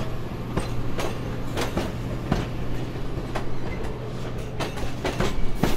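Train running, with a steady low hum and irregular sharp clacks of the wheels over rail joints.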